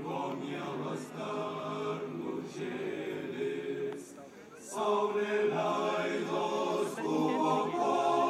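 Large mixed choir of women's and men's voices singing a Lithuanian song together. Their voices drop away briefly about four seconds in, then come back at full strength for the next phrase.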